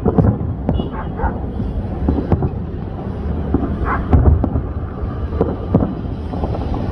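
Aerial fireworks shells bursting in a string of irregular booms and cracks, over a steady low rumble of wind on the microphone.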